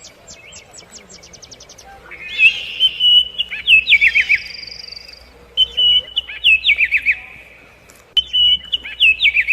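Songbirds singing: a rapid series of high chirps near the start, then the same song phrase three times about three seconds apart, each a run of short even notes ending in quick falling notes. A second, higher whistle sounds in the middle.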